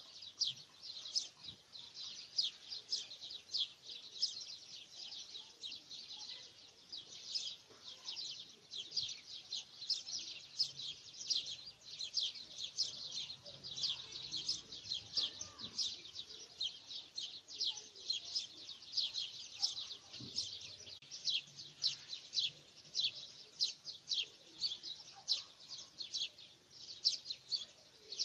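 Small birds chirping: a steady run of short, high chirps, several a second, without a break.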